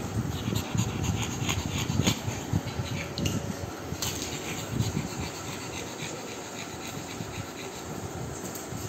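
A pug snuffling and sniffing right at the microphone, with rubbing and knocking of fur and nose against the phone, in uneven bursts over the first half; it then settles to quieter background.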